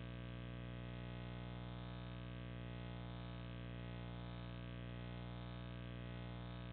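Steady electrical hum and buzz with many overtones, unchanging throughout. No owl call or other distinct sound stands out from it.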